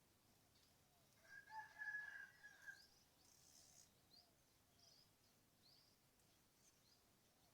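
A rooster crowing once, faintly, a held call of about two seconds starting about a second in, with small birds chirping now and then.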